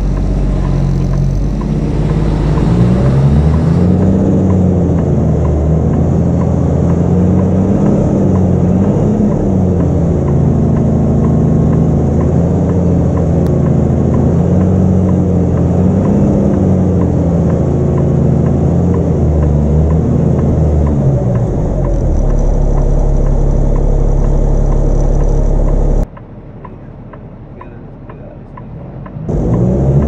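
Kenworth T880 semi truck's diesel engine revving up and falling back again and again under heavy load as it strains to pull a lowboy trailer loaded with a D10 bulldozer through wet mud. Later the engine settles to a steady low drone, and near the end the sound drops away suddenly.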